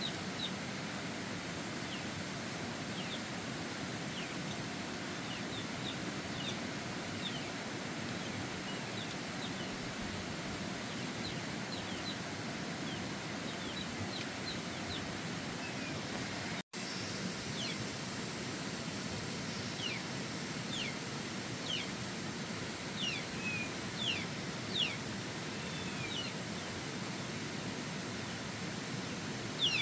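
Steady outdoor background hiss with many short, high, downward-slurred bird chirps scattered over it, coming faster and louder in the second half.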